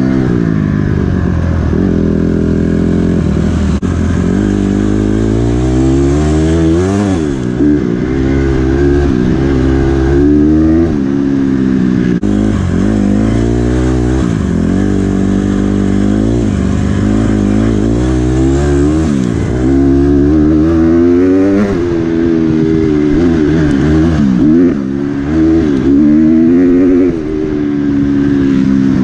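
Honda dirt bike's single-cylinder four-stroke engine being ridden hard, revving up and dropping off again and again as the rider shifts through the gears and rolls off the throttle.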